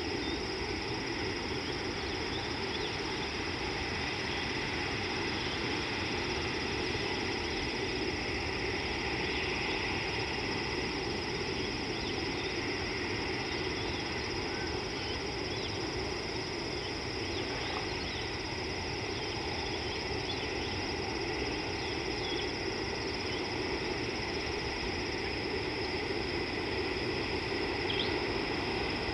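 Steady outdoor ambience: a constant low rushing noise under a continuous high, even drone like insects, with a few faint short bird chirps scattered through.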